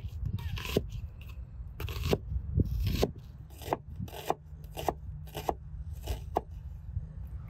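Chef's knife slicing a red onion on a wooden cutting board: a steady series of short cuts, each ending with a tap of the blade on the board, about two a second.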